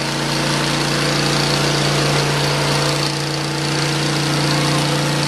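Engine of a Hud-Son Oscar 36 portable bandsaw sawmill running steadily at constant speed, a loud even hum.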